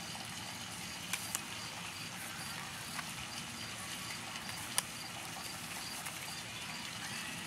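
Large oracle cards being handled and moved by hand: a few light, sharp clicks as the cards are slid and set down, over a steady background hiss.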